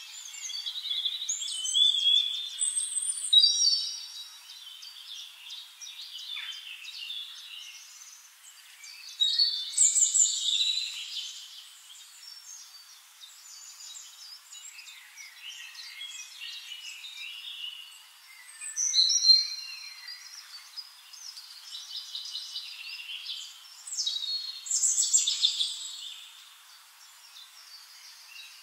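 Birds singing and calling: chirps, short trills and whistled glides that come in louder bursts every several seconds, with quieter calls in between.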